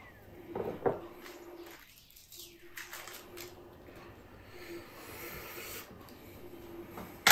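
Soft handling sounds of wooden chopsticks and a crisp iceberg lettuce leaf as a fried lumpia is wrapped in the leaf: light rustling and rubbing, a couple of faint clicks about a second in, and a sharp click at the very end.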